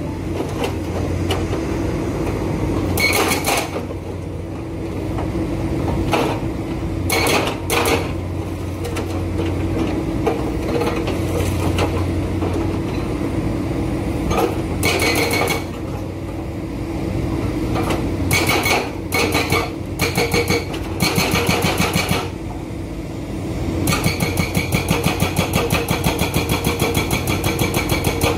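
Hydraulic breaker on an excavator hammering in short bursts of rapid, evenly spaced blows over the machine's steady engine, with a long unbroken run of hammering near the end.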